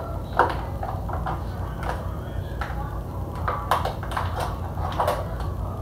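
Plastic water bottle crinkling and clicking in scattered short sounds as a man drinks from it, over a steady low hum.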